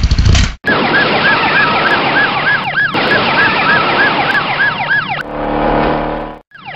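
Police car siren sound effect in a fast rising-and-falling yelp, about two cycles a second, over car noise. It follows a loud low rumble that cuts off about half a second in; near the end a steady car engine tone replaces the siren briefly before the siren returns.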